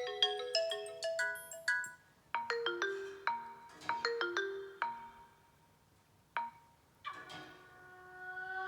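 Vivo phone ringtones playing one after another. A quick melody of struck, bell-like notes ends about two seconds in, and a second short melody follows. Near the end a new, softer ringtone swells in.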